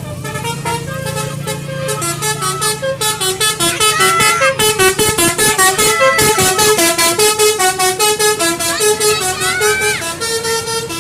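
Bus 'telolet basuri' musical air horn playing a fast melody of short, stepped notes with a few sliding notes, over a low steady hum. It grows louder about two seconds in.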